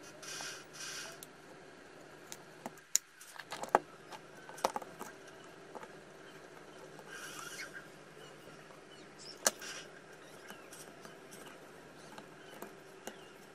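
Handling noise from reassembling a Bosch 18V cordless drill: a few sharp clicks and knocks as the motor, gearbox and switch are fitted into the plastic housing, with brief rustles in between.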